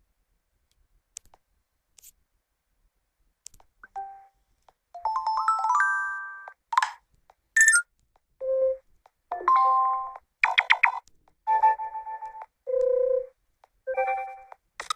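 Vsmart Live smartphone alert tones played one after another: a few faint clicks at first, then from about five seconds in a string of short electronic jingles, including a rising run of chime notes and several brief ringing blips.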